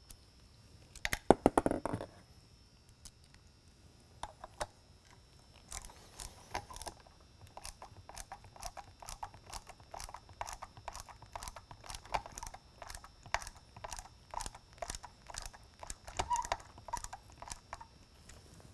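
Stainless steel screw being turned in by a hand screwdriver into a beacon's base: a run of small clicks and creaks, about two to three a second, as the screw is driven home. A short louder clatter of clicks about a second in.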